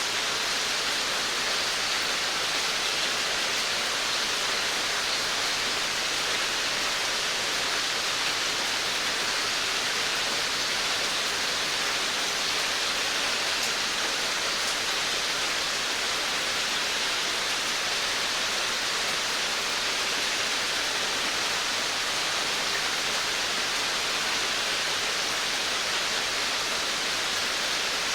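Steady rain on a veranda: an even, unbroken hiss with no single drops standing out.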